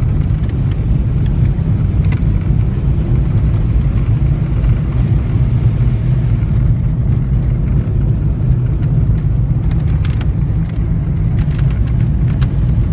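A car on the move, heard from inside the cabin: a steady low rumble of road and engine noise. A few faint clicks come in near the end.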